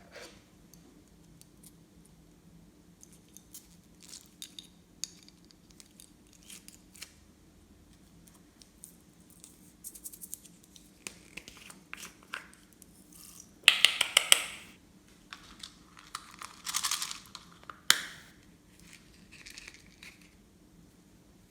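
Plastic crinkling and scattered small clicks from handling slime-making materials, with a loud crackly burst about two-thirds of the way through, a shorter rustle soon after, and a sharp click.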